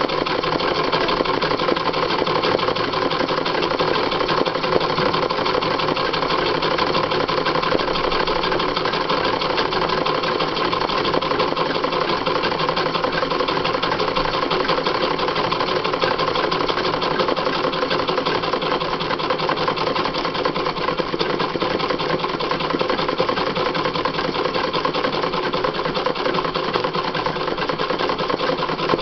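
Sewing machine running steadily, its needle stitching without a break in free-motion embroidery.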